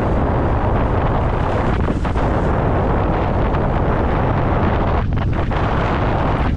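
Wind buffeting the microphone of a camera carried while windfoiling: a loud, steady rumbling roar that drowns out everything else.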